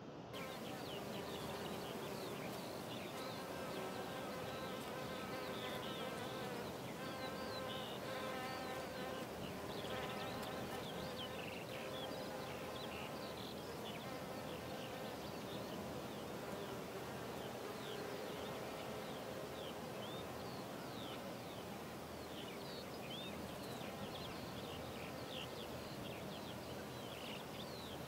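Insects buzzing, a wavering hum that comes and goes over a steady outdoor hiss, with many short high chirps throughout.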